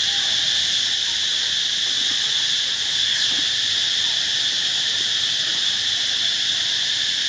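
Insects droning: a steady, high-pitched chorus without a break.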